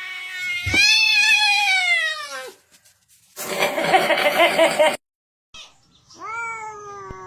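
Cat meowing: a long, loud, drawn-out meow about a second in that falls in pitch at its end, and a second, shorter falling meow near the end. In between comes a short burst of busy noise that cuts off abruptly.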